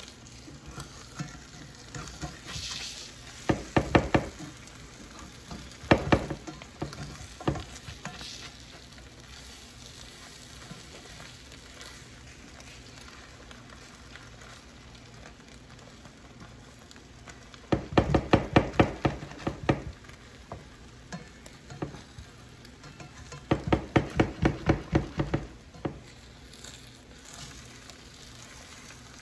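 Steak strips and eggs frying in butter in an electric skillet, with a steady sizzle. Four runs of rapid taps and scrapes as a plastic spatula chops and stirs against the pan: two short ones in the first quarter and two longer ones past the middle.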